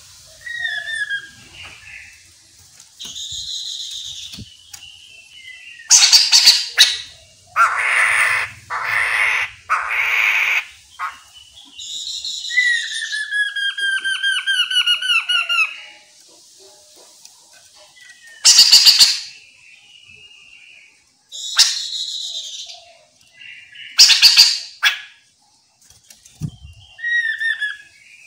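Chestnut-capped laughingthrush calling and singing: short whistled phrases broken by loud, harsh chattering bursts, with a long run of quick, falling notes in the middle.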